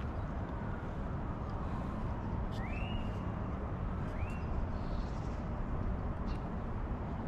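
Steady wind and traffic noise heard while riding a bicycle on city streets, with two short rising chirps about a second and a half apart near the middle.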